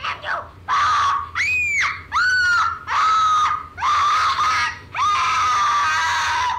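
A home-made song recording played back from the Voice Memos app through an iPhone 3GS's small speaker: a high, voice-like sound holding long notes near one pitch, with a couple of swoops up and back down, in phrases of about a second with short gaps between them.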